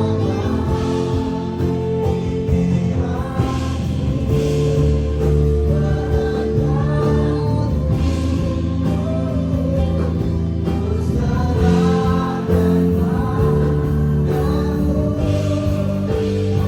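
Church worship music: a band with held keyboard and bass notes accompanying a group of singers in a gospel-style worship song.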